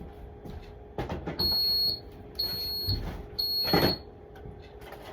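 Refrigerator door-open alarm beeping three times, about a second apart. Each beep is a steady, high-pitched tone about half a second long. It sounds because the fridge door has been left open.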